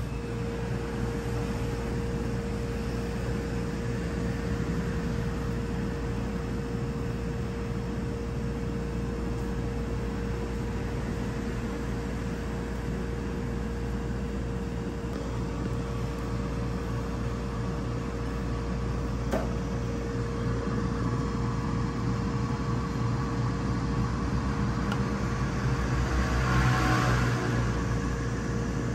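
Steady mechanical hum with a constant mid-pitched tone over a low rumble, as of machinery running. A single sharp click about two-thirds of the way in, and a brief swell of hissy noise near the end.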